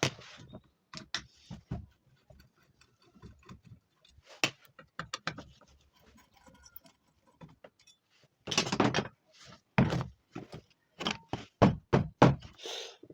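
Irregular clicks, clinks and knocks of hard parts and hand tools being handled while a dry iron is taken apart. There is a denser clatter after about eight seconds and a quick run of sharp clicks near the end.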